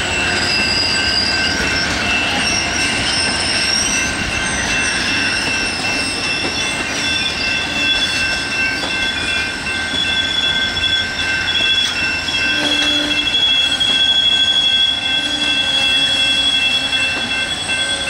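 Amtrak bilevel passenger cars rolling slowly past, their wheels squealing on the rails in several thin, steady high tones, some wavering, over the even noise of the wheels rolling.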